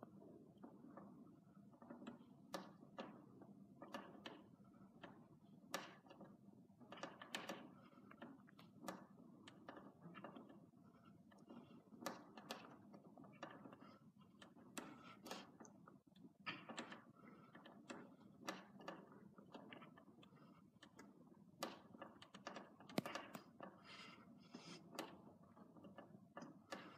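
Wooden wall bars knocking and creaking under a person hanging and raising his legs: faint, irregular sharp knocks over a low, steady hum.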